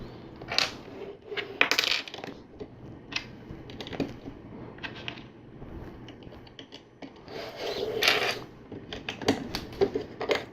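Loose plastic LEGO bricks being handled and sorted: scattered short clicks and clattering rattles, with busier bursts about two seconds in and again from about eight seconds.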